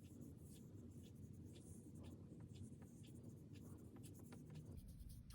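Near silence: faint, irregular soft scratches and taps of a watercolor paintbrush picking up paint and stroking paper, over a low room hum.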